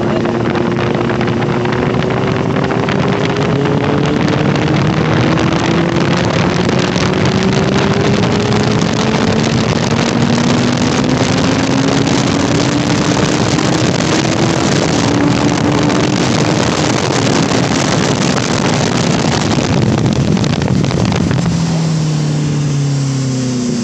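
Benelli 600 inline-four motorcycle engine held under load on a top-speed run, its pitch climbing slowly as the bike gains speed, under heavy wind rushing over the microphone. Near the end the engine note falls away as the throttle is closed.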